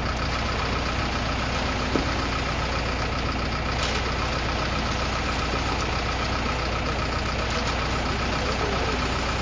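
Self-loading concrete mixer's engine running steadily at a constant speed, with a faint high tone pulsing rapidly throughout and a single short knock about two seconds in.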